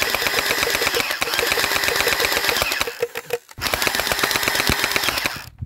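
Electric gel blaster firing on full auto: a fast, even rattle of shots over the whine of its motor and gearbox, in two long bursts with a short break a little over three seconds in.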